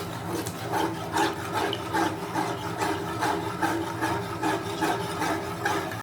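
Spoon stirring milk in a pan, scraping rhythmically at about two and a half strokes a second over a steady low hum.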